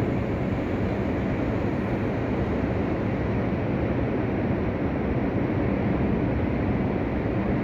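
Rough sea surf: a steady, deep roar of heavy waves breaking, with no single crash standing out.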